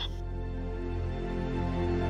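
Soft background music of sustained, held tones.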